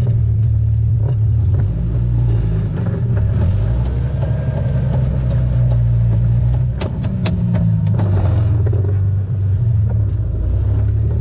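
Off-road vehicle's engine running low and steady at crawling speed on rocky trail, with a few sharp knocks a little past halfway.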